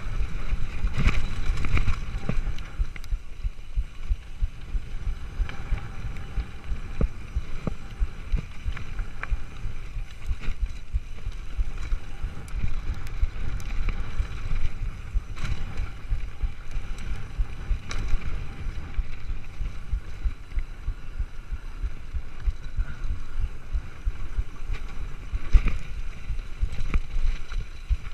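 Mountain bike rolling fast down a rocky gravel trail: a continuous low rumble of tyres on gravel with wind buffeting the microphone, and frequent short clicks and rattles as the bike goes over bumps and stones.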